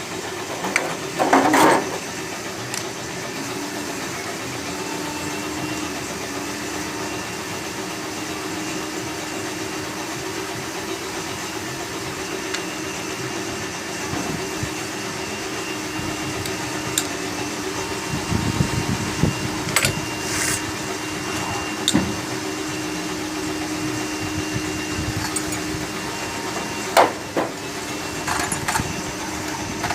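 Steady workshop hum with a low held tone, broken by scattered sharp clinks and knocks of hand tools on engine parts as the engine is taken apart; the loudest knock comes near the end.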